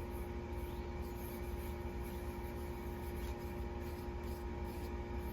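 Steady low machine hum with a few constant tones running through it, and no distinct knocks or strokes.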